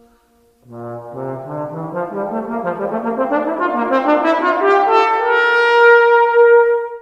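A solo brass instrument plays a quick run that climbs in steps from its low register to a high note, held for about two seconds. The run starts after a brief pause.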